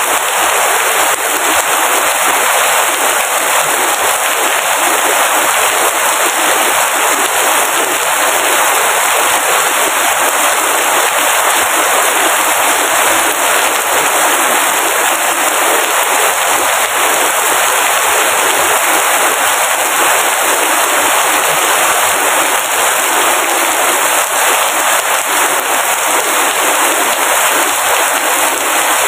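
Steady rain falling, a dense, even patter that does not let up.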